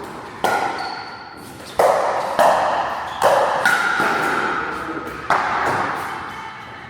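Pickleball paddles striking a plastic ball in a rally: about five sharp pops spread over several seconds, each ringing out with a long echoing decay.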